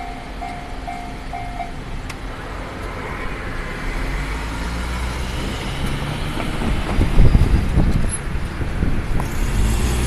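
Japanese railway level-crossing warning bell ringing its repeating electronic clang about twice a second, stopping about two seconds in as the crossing clears. Road traffic then starts across the tracks close by, cars and a truck with engines and tyres, growing louder and loudest about seven seconds in.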